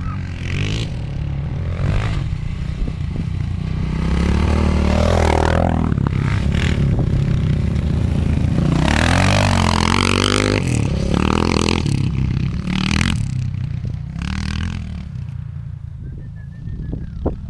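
Single-cylinder Kawasaki KLX dirt bike (a big-bore KLX700R build) ridden hard, the engine revving up and down through the gears as it comes near. It is loudest in the middle and eases off near the end.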